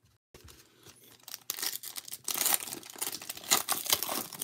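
Crinkly plastic wrapper of a 2022 Bowman baseball card pack being handled and torn open by hand: light rustling at first, then loud dense crackling and tearing from about a second and a half in.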